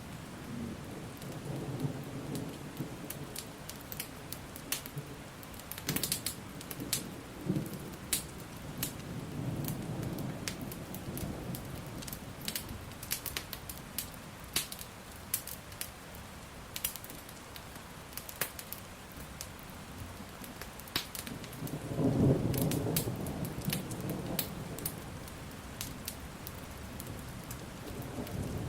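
Steady rain with rolling thunder rumbling now and then, the loudest roll about two-thirds of the way through, while a wood fire crackles with sharp pops throughout.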